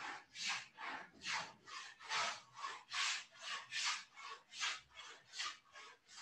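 Rhythmic rubbing strokes, about two to three a second, each a short hiss, keeping an even pace and stopping suddenly near the end.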